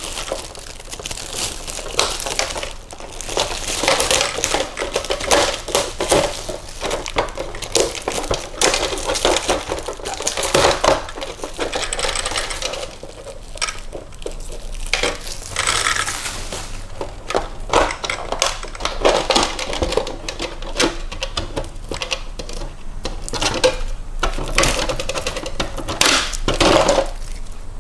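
Hands handling packaging and small plastic parts: rustling and crinkling with many small irregular clicks, taps and light rattles.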